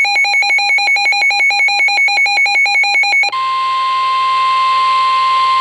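Weather radio alert: a loud, rapid electronic beeping, about eight beeps a second, for about three seconds. It then switches to the steady single-pitch warning alarm tone of NOAA Weather Radio (the 1050 Hz tone), over a light hiss, signalling that a warning is about to be read.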